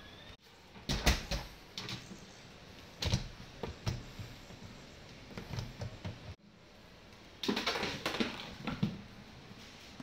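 Plastic tub knocked and scraped across a tiled floor by a puppy pushing it with its nose, in irregular clusters of clattering knocks: about a second in, around three seconds, and again from about seven and a half to nine seconds.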